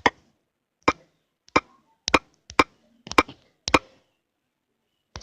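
Keys being typed on an Android phone's on-screen keyboard: a slow series of sharp single clicks, about one every half second, with a longer pause before the last.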